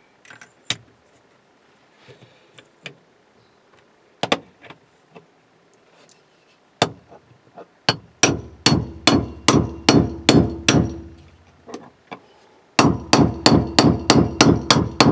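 Hammer striking the top of a stacked 3/4-drive deep socket, driving a Speedi-Sleeve repair sleeve down onto a distributor shaft. The strikes come in two quick runs, about eight and then, after a short pause, about nine, each with a brief metallic ring. Light clicks and knocks of tools being handled come first.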